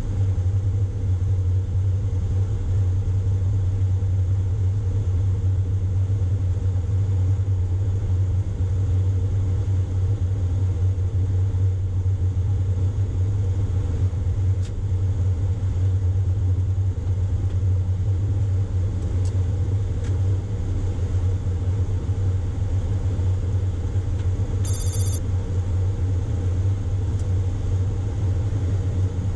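Steady low rumble in the cockpit of a Boeing 737-800 as it slows and rolls along the runway after landing. A brief high-pitched ringing tone sounds once, near the end.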